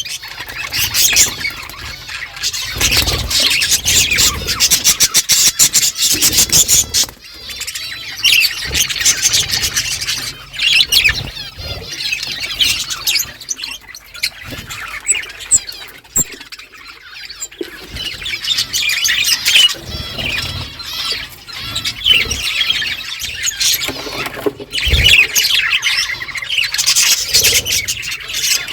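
A flock of budgerigars chattering together: dense, overlapping warbles, chirps and squawks in waves, with brief lulls.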